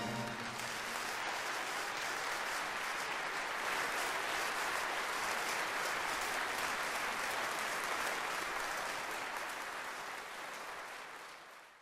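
Audience applauding steadily in a hall after a brass band piece, the band's last chord dying away in the first moment; the applause fades out near the end.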